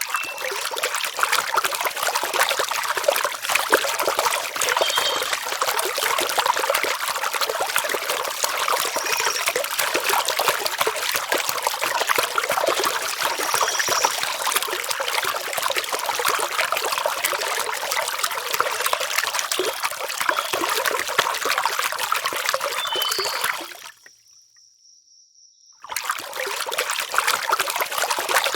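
Water trickling and splashing steadily, a dense even wash of sound. It cuts out for about two seconds near the end, then resumes.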